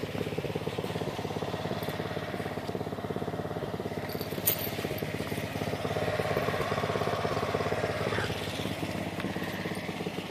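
A small engine running steadily with an even, fast pulse.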